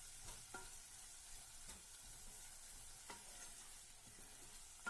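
Faint sizzling of a tomato and onion masala cooking down in a pan, with a spoon clicking against the pan a few times.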